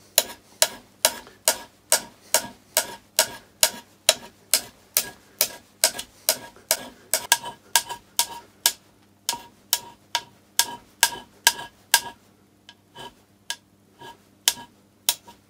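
Hand scraper drawn backwards in short, light pull strokes across a soft aluminium plate held in a steel vise, about two strokes a second, each a sharp scrape with a brief metallic ring. The strokes thin out and become irregular after about twelve seconds.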